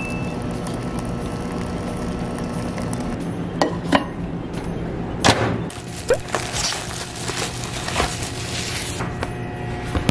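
A few sharp knocks of packaging being handled, then crinkling plastic film as the cling wrap is pulled off a convenience-store lunchbox tray.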